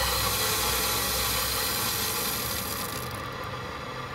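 Water hissing through a partly opened main shutoff ball valve as the house supply is cracked open slowly to refill the lines without water hammer. About three seconds in, the highest part of the hiss falls away and it gets a little quieter.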